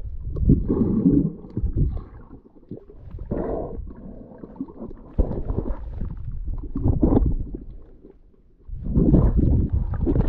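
Muffled underwater rumbling and sloshing of water moving around a submerged camera, swelling and fading unevenly.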